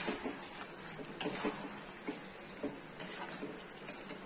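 A steel spatula scrapes and knocks against a kadhai as fried fish pieces are stirred through thick curry masala. Irregular sharp clinks come at the start, about a second in, and in a cluster near the end.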